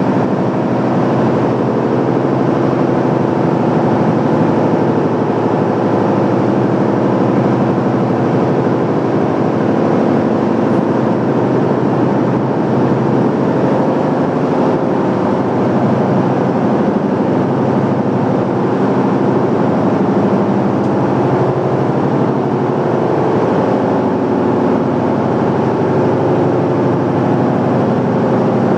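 Loud, steady engine-like machinery drone with a low hum of several even tones, unchanging throughout.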